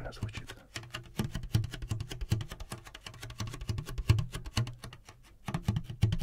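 Hands handling a smartwatch's cardboard box and paper leaflet: a dense run of small clicks and taps with soft thumps and some crinkling.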